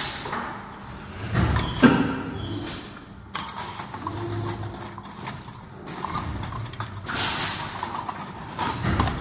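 Clear disposable polystyrene cups clattering and rustling in irregular bursts as gloved hands sort through them in a plastic bin, over a steady low hum.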